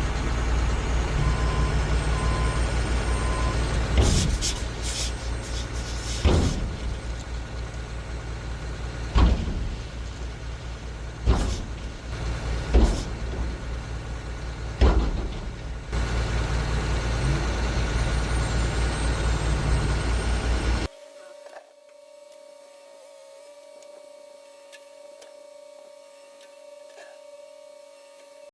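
Heavy diesel machinery running steadily, with a sharp metallic clank every two seconds or so. About 21 seconds in it cuts abruptly to a much quieter steady hum.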